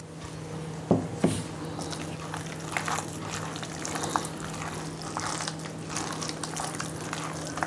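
A hand squeezing and mixing a wet batter of palm-fruit pulp, mashed banana and grated coconut in a steel bowl: a continuous wet squelching with small clicks. Two knocks come about a second in.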